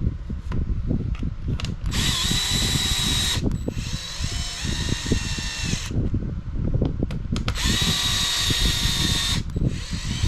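Small electric screwdriver spinning in two runs of about a second and a half each, a steady high-pitched whine, driving button-head screws into an RC buggy chassis. Light knocks and clatter of parts being handled run between the runs.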